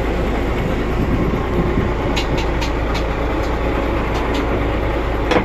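Fishing trawler's engine running steadily, heard on deck, with a scattering of light clicks and knocks about halfway through.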